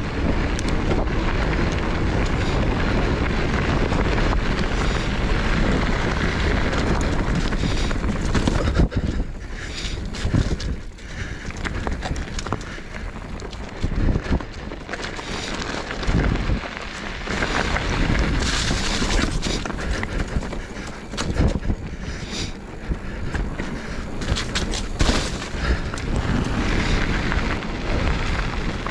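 Wind buffeting the microphone over the tyres of a Commencal Meta HT hardtail mountain bike rolling along a gravel road. From about a third of the way in there are scattered knocks and rattles as it goes over bumps.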